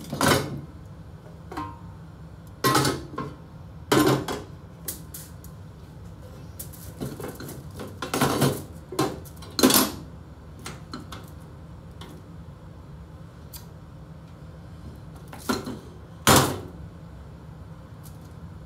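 Metal cookware clattering as a large stockpot and its lid are handled: a dozen or so irregular clanks and knocks, the loudest about ten seconds in and near the end, over a steady low hum.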